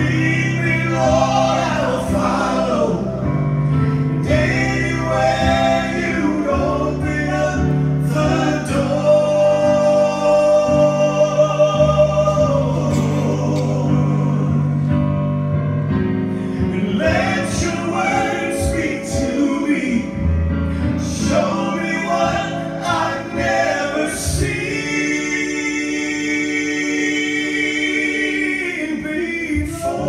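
Male gospel vocal trio singing a slow song in harmony into microphones, with accompaniment holding steady low notes under the voices.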